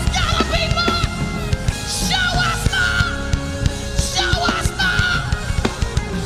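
Worship band music with a driving drum beat under a loud, strained singing voice that holds high notes twice.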